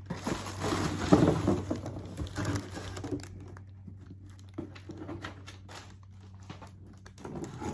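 Cardboard box and plastic packaging rustling and crinkling as a canister vacuum is pulled out of its box, loudest in the first few seconds, then scattered light taps and clicks of handling.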